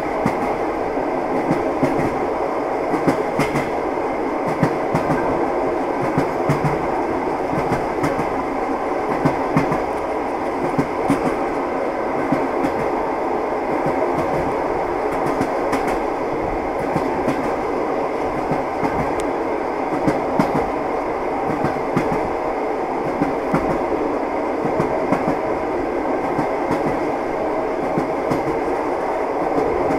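A train running along the rails: a steady rumble with scattered clacks from the wheels.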